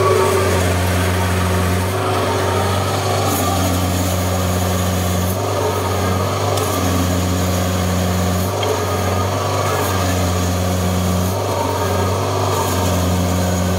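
Kubota DC60 combine harvester's diesel engine running hard as the tracked machine tries to pull itself out of sticky mud it is bogged in, without getting free. A higher tone over the steady engine note comes and goes every two to three seconds.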